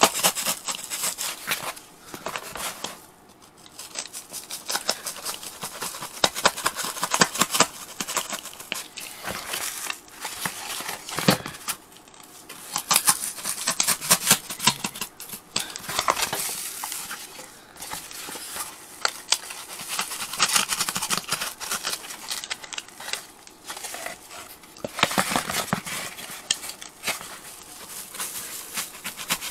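Utility knife cutting through a felt-covered engine-bay side cover, a dense run of crackling, rasping cuts with fibres tearing, pausing briefly about three seconds in and again around twelve seconds.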